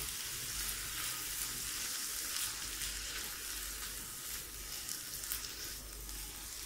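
Chicken and onion filling sizzling steadily in oil in a frying pan as a spatula stirs it, the sauces just mixed in.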